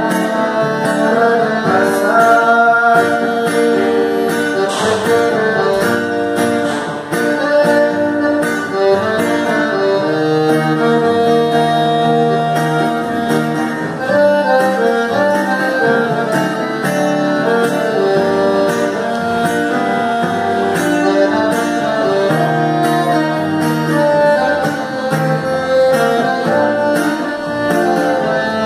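Piano accordion and acoustic guitar playing a tango together: the accordion holds sustained notes and chords over the plucked guitar.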